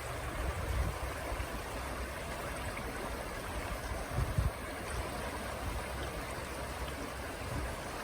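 Steady rush of flowing river water, with a few brief low rumbles.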